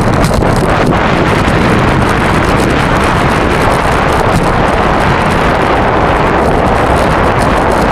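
Steady wind rushing over the microphone of a moving camera, with a low rumble underneath.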